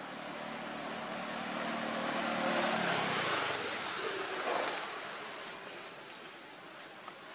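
A motor vehicle passing by, out of sight: its noise builds to its loudest about two and a half seconds in and fades away by about six seconds, the engine's hum dropping in pitch as it goes past. Insects shrill steadily underneath.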